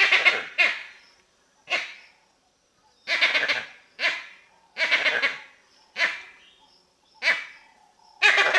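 Vervet monkey giving a rapid series of short, harsh calls, about nine in all, spaced roughly a second apart with some coming in quick pairs. Each call trails off in a short echo.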